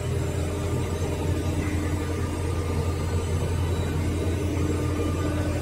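Steady low machine hum with a few faint steady tones above it, from the electro-hydraulic press brake's motor and hydraulic pump running at idle.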